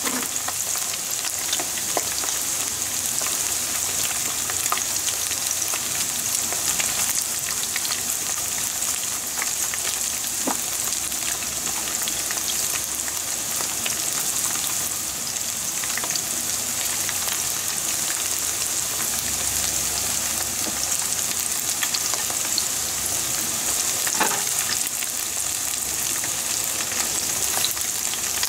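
Coated pieces of karaage deep-frying in a pan of hot oil: a steady, dense sizzle of bubbling oil with scattered small pops.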